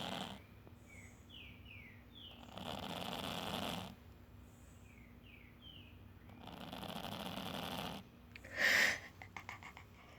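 A domestic cat snoring in its sleep: three slow, drawn-out snoring breaths about four seconds apart. The owner wonders whether the cat has a cold. Near the end a brief, louder noise is followed by a few faint clicks.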